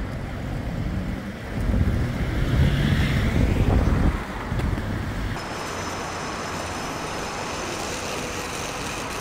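City street traffic: a motor vehicle's engine rumbles past close by, loudest from about two to four seconds in. About five seconds in the sound switches abruptly to a steady traffic hum.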